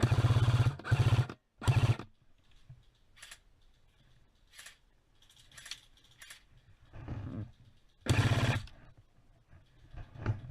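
Airsoft gun firing rapid bursts: three short bursts in the first two seconds, then another about eight seconds in.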